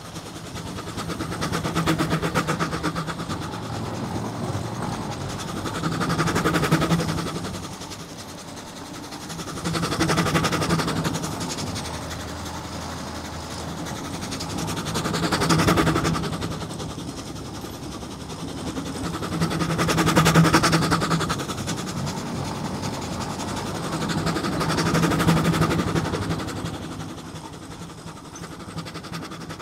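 Steam traction engine driving along, heard from close behind as it is followed: a rapid, even mechanical beat over a low steady tone, swelling louder and easing back about every four to five seconds.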